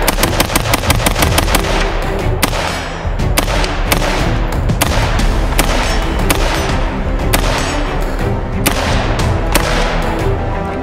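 Diamondback AR-15 in .223 Remington fired semi-automatically: a quick string of shots in the first two seconds, then shots at a slower, uneven pace about half a second to a second apart.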